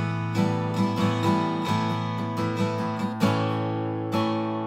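Alvarez steel-string acoustic guitar strummed in a steady rhythm, ringing chords that change several times.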